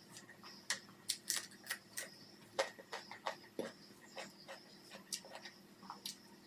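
Close-miked eating sounds of someone eating rice and curry: irregular clicks and smacks of chewing, coming in quick runs in the first half.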